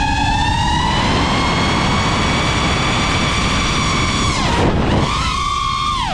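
iFlight Nazgul 5-inch 6S FPV quadcopter's motors and propellers whining at high throttle. The pitch holds high, then drops sharply and climbs back a little over four seconds in as the throttle is chopped and punched again, and falls once more at the very end.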